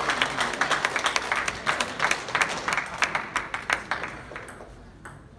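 Small crowd of spectators applauding a point won in a table tennis match, the clapping thinning out and dying away about four seconds in.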